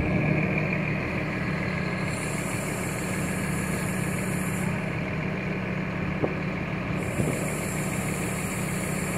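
Crane truck's diesel engine running steadily at idle, a low even hum, with a faint high hiss coming in twice.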